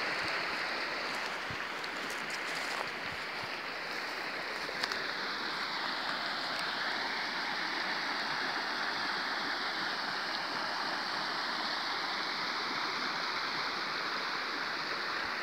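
Creek water flowing, a steady rushing wash.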